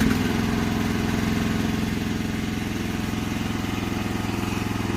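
TITAN T15 mini excavator engine running steadily just after starting.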